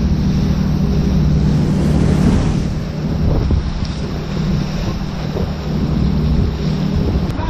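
Suzuki outboard engine running steadily as the boat trolls, with wind buffeting the microphone and water rushing along the hull.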